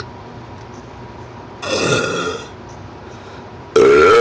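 Deliberate burps. A short burp comes about a second and a half in, then a louder, longer one starts near the end.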